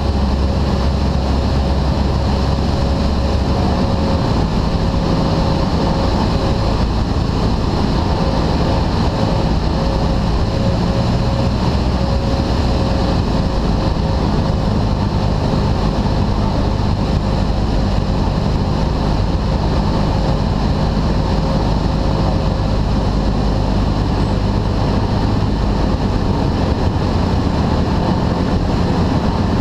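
Cessna 172's four-cylinder piston engine and propeller droning steadily, with wind noise, heard inside the cabin on approach to land. The engine's low tone shifts about four seconds in and again near the end.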